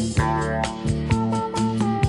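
Background music: a song with guitar over a steady drum beat.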